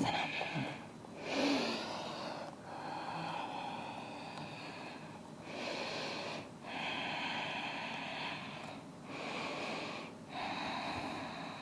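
A person breathing slowly and deeply, audible in-and-out breaths that each last one to two and a half seconds, about three or four full breaths, while holding a yoga pose.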